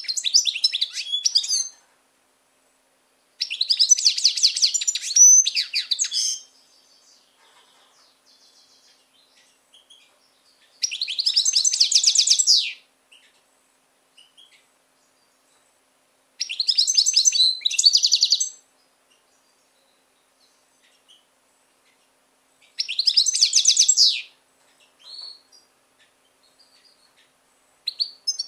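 Caged European goldfinch singing in short phrases of rapid, high-pitched chattering notes, each lasting one to three seconds, with pauses of several seconds between them; about six phrases.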